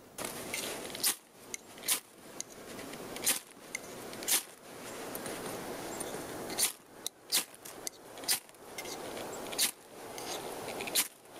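Dry cedar bark rustling and tearing under the hands, with a series of sharp scrapes about once a second: a ferro rod being struck to throw sparks into a cedar bark tinder bundle that has not yet caught.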